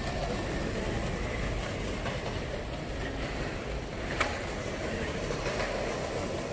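Steady low rumble and hiss of street background noise, with a single sharp click about four seconds in.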